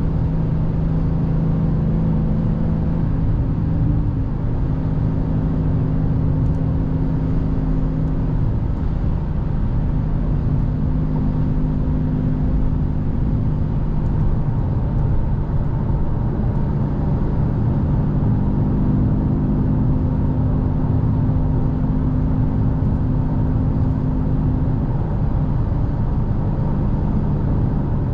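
Dodge Challenger Scat Pack's 392 (6.4-litre) HEMI V8 droning steadily with tyre and road noise, heard from inside the cabin while cruising at an even speed.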